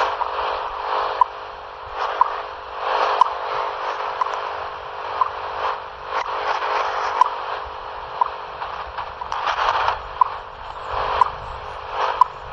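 Shortwave time-signal station WWVH received on a Tecsun PL-368 portable radio: a short tick pip once a second through hissing static that swells and fades.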